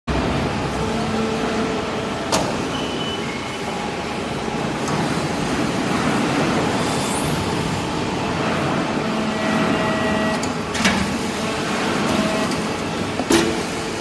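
Hydraulic briquetting press for metal shavings running: a steady mechanical hum from its hydraulic power unit, with a few held tones. Sharp knocks come about two seconds in and twice more near the end.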